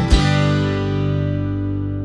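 Background music on guitar: one chord strummed just after the start, left ringing and slowly fading.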